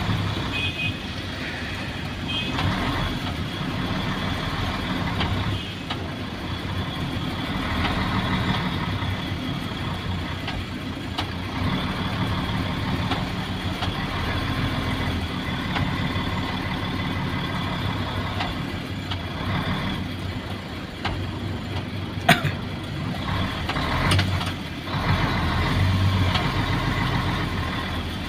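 Isuzu Giga truck's 6WA1 six-cylinder diesel engine running steadily while the truck is driven, heard from inside the cab. A few short high beeps sound near the start, and a single sharp click comes about three-quarters of the way through.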